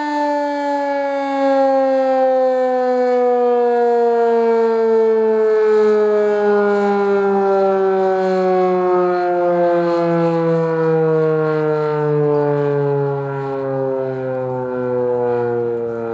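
Federal Signal 2001 electromechanical outdoor warning siren winding down at the end of its test, its pitch falling slowly and steadily.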